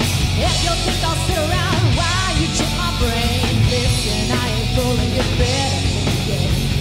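Live rock band playing: a woman singing lead over electric guitars, bass guitar and drums.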